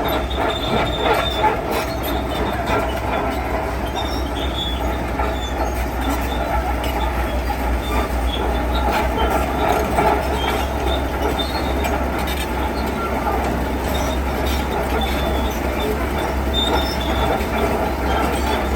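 Heavy construction machine running steadily, with short high-pitched metallic squeals over the low engine noise, typical of crawler tracks or steel parts rubbing.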